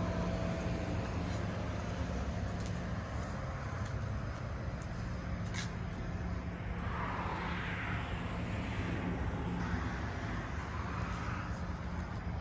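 Steady low hum with a rumble beneath it. From about seven seconds in, a soft rushing sound swells twice over several seconds as a Gyro Tech automatic sliding door opens.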